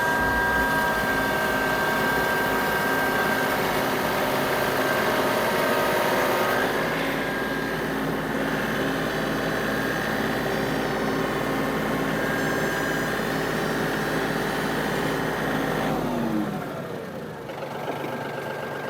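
Four-wheel-drive tractor engine running steadily under load as the tractor tries to climb a steep, muddy slope; the engine winds down near the end.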